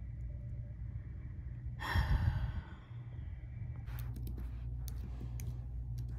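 A person's long exhaled sigh about two seconds in. Then, from about four seconds in, typing on a computer keyboard: a run of irregular key clicks.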